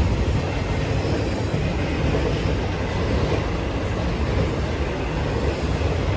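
Intermodal freight train cars loaded with highway trailers rolling past, a steady rumble of steel wheels on the rails.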